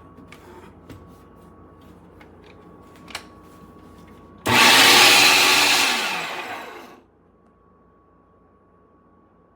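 Electric meat grinder's motor switched on with a sudden loud whir, running for about two seconds, then winding down in pitch and stopping. Before it come a few light clicks of handling.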